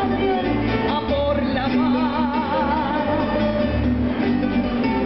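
A woman singing into a microphone through a PA system over a Latin-style backing track with guitar, holding a long note with wide vibrato about halfway through.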